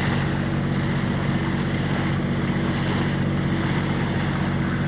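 A motorboat's engine runs steadily at a constant speed, with water rushing along the hull and wind on the microphone.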